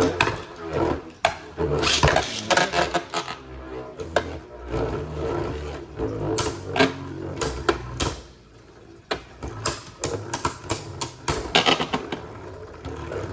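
Two Beyblade Burst spinning tops whirring in a plastic stadium, with frequent sharp clacks as they collide. The sound dips briefly about eight seconds in, then the clashing picks up again.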